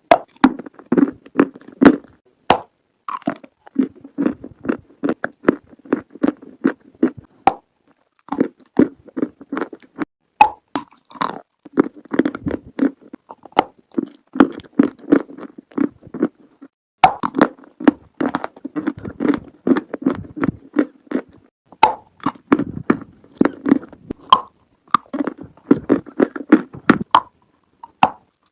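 Close-up biting and chewing of chalk: sharp snaps as pieces are bitten off, each followed by a run of rapid crunchy chewing, repeated in rounds with short pauses between them.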